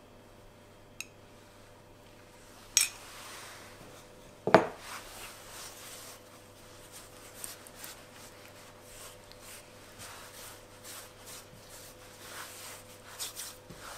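A sharp clink and then a louder knock as objects are set down on the wooden worktop, about three and four and a half seconds in. After that come soft, irregular rubbing strokes of hands spreading oil over a thin sheet of pastry dough.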